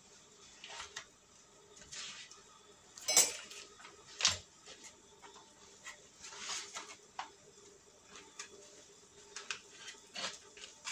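Table knife scraping butter onto slices of bread on a wooden cutting board, in short irregular scrapes, with two sharper knocks about three and four seconds in.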